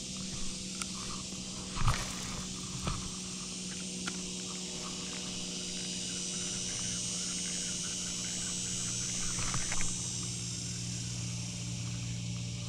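Steady outdoor background of a low hum and a high hiss, with a few light knocks and clicks from handling a fishing rod and reel, the loudest about two seconds in.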